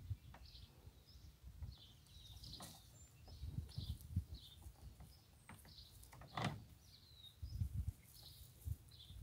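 A calf mouthing and chewing a cloth bandana on wood chips, heard as faint rustles and low thumps, with one sharp click past the middle. Small birds chirp repeatedly in the background.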